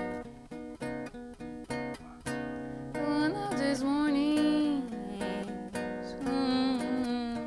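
Acoustic guitar strumming a steady accompaniment. From about three seconds in, a woman's singing voice enters with a long line that slides in pitch, pauses briefly, then comes back near the end.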